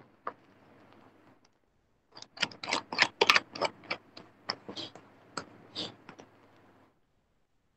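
A quick, irregular run of sharp clicks and taps that starts about two seconds in and lasts about five seconds, with a faint steady hum under it.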